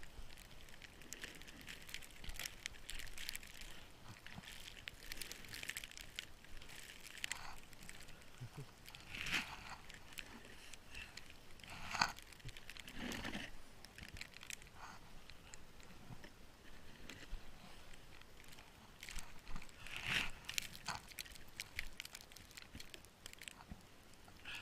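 Snow crunching in irregular, closely spaced crunches, with a few louder ones scattered through.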